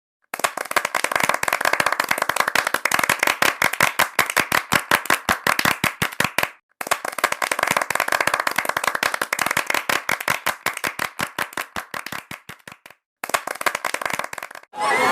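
A rapid, fairly even series of sharp cracks, several a second, in three stretches that each cut off abruptly.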